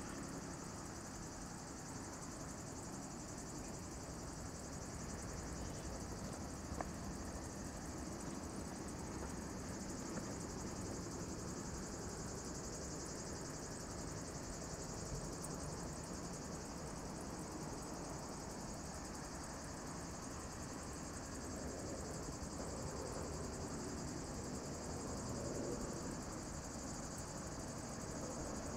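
A steady, high-pitched chorus of summer insects chirring without a break, over a faint low rush of a distant jet airliner on approach that grows a little near the end.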